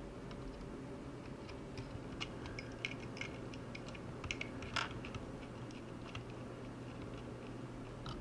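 Light, scattered clicks and taps of a small screwdriver and screws against the plastic drone body and metal gimbal bracket as the screws are set in, with one sharper click a little past the middle.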